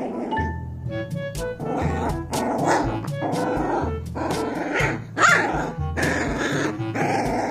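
Background music with a steady beat, with a Labrador retriever puppy barking briefly about five seconds in as it plays.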